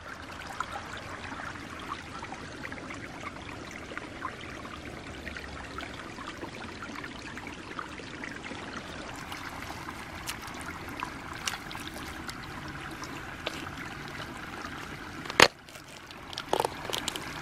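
Shallow stream trickling steadily over rocks, with a sharp knock about fifteen seconds in. A few short wet sounds follow near the end as a hand digs in the mud at the water's edge.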